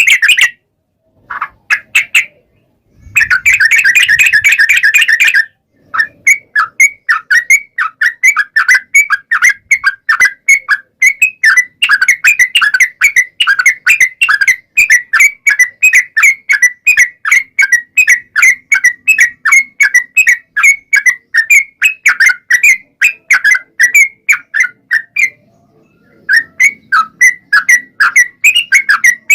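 Yellow-vented bulbul singing a long, rapid string of short, bubbly whistled notes, several a second. It opens with dense chattering bursts and pauses briefly near the end before starting again.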